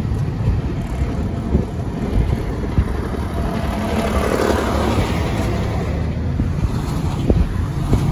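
Steady road and wind rumble from a moving car. About four seconds in, a brief swell of noise comes as the car passes close by a semi truck.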